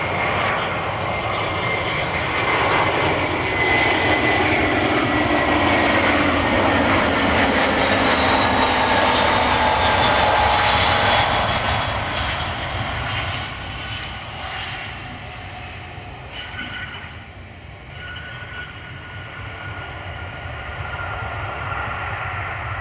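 Jet airliner on landing passing close by: the engines rush loudly, with a whine that slowly falls in pitch. The noise fades sharply about halfway through, and a quieter engine sound carries on.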